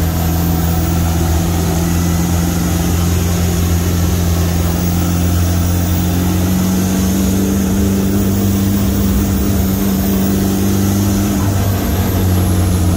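Off-road car's engine running steadily with a low, even drone that holds the same pitch throughout.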